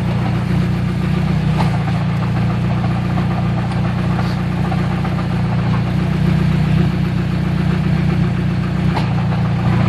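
Hyundai Tiburon idling steadily with a clanking from the drivetrain after the transmission lost third gear. The owner suspects it might be the throwout bearing, or possibly the input shaft.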